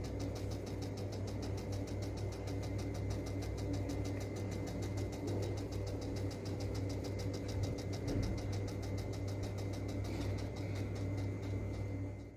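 Small battery-powered DC motor of a homemade cardboard mini generator model running steadily, with a low hum and a rapid, even ticking. It cuts off abruptly at the end.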